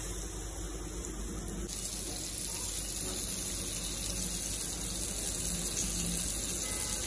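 Fish and prawns shallow-frying in hot oil in a pan: a steady sizzle, a little brighter and louder from about two seconds in.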